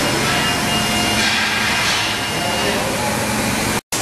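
Loud steady din of machinery in a large workshop, with indistinct voices. It drops out abruptly for a moment near the end.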